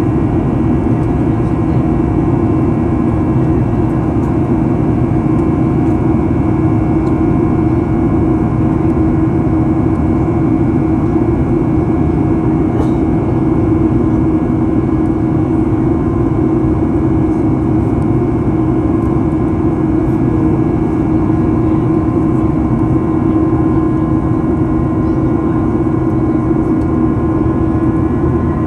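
Cabin noise of a Boeing 737-800 in flight: the steady drone and airflow rush of its CFM56-7B turbofan engines, with a steady hum tone running through it.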